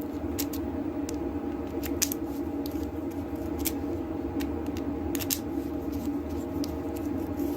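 Scattered small metallic clicks of a key being slid into and turned in a freshly rekeyed pin-tumbler deadbolt cylinder, over a steady hum.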